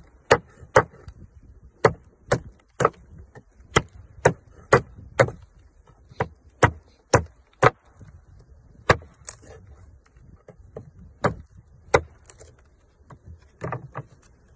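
Damascus steel knife chopping into a wooden plank with hard, full-force blows: about seventeen sharp chops, roughly two a second in runs broken by short pauses. It is an impact-strength test of the blade.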